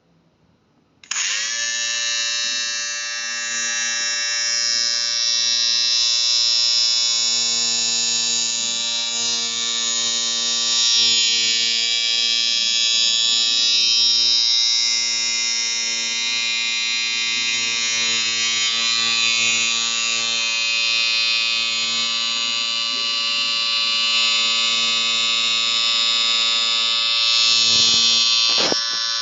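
Electric grooming clipper switched on about a second in and buzzing steadily at one pitch, with a brief wobble near the end.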